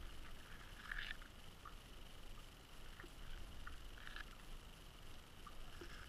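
Muffled underwater noise picked up through a GoPro Hero3 Black's sealed housing as it hangs on a fishing line: a faint, low rumble of water with scattered faint clicks and knocks, roughly one a second, as the camera swings and spins on the line.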